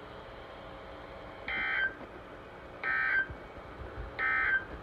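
Emergency Alert System end-of-message signal: three short bursts of SAME digital data tones, a little over a second apart, marking the end of a National Weather Service flood warning.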